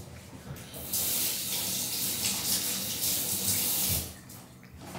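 A water tap running in a steady hiss for about three seconds, turned on about a second in and shut off abruptly.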